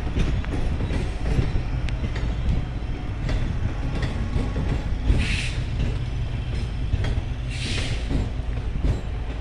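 A passenger train's coaches rolling past at close range: a steady low rumble with irregular clacking of the wheels over the rail joints. Two short hisses come about five and seven and a half seconds in.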